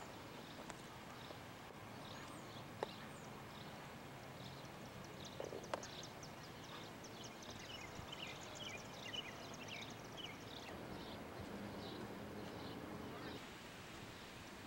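Small birds chirping outdoors: many short, high chirps, busiest in the middle stretch, over steady low background noise, with a couple of sharp clicks about three and six seconds in.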